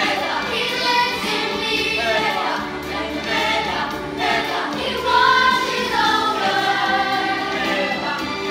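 A chorus of children singing together in a stage musical number.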